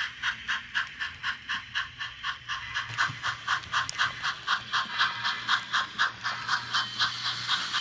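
Steam-locomotive exhaust chuffing from an HO-scale model steam locomotive's sound: a steady, even beat of about four chuffs a second over a faint low hum.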